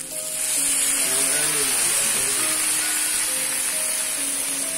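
Water spinach sizzling in a hot frying pan: a loud, steady frying hiss that jumps up suddenly right at the start. Background music with held notes plays underneath.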